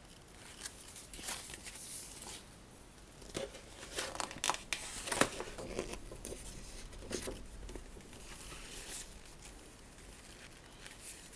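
Paper pages of a plastic model kit's instruction booklet rustling and crackling as they are turned and handled, busiest in the middle with a few smaller rustles later.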